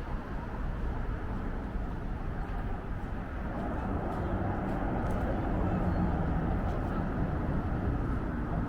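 City street traffic: a steady hum of passing vehicle engines and tyres, swelling slightly a few seconds in, with a few faint ticks.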